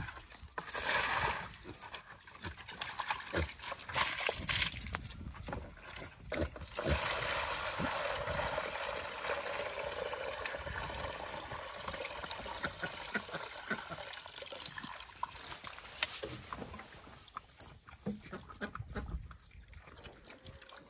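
A few knocks and handling sounds, then water poured steadily into a bucket for about ten seconds, tapering off near the end.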